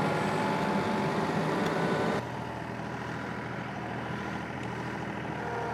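John Deere 2038R compact tractor's three-cylinder diesel running under working load with a steady whine. About two seconds in it drops abruptly to a quieter, steady running.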